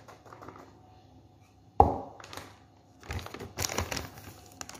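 Plastic bag crinkling and rustling in bursts during the second half, with a single sharp knock, the loudest sound, about two seconds in.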